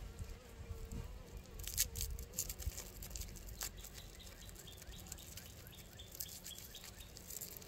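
Honey bees buzzing faintly around an open hive, with one steady hum fading out after a couple of seconds, over a low uneven rumble. There are a few light clicks, and faint high chirps come later.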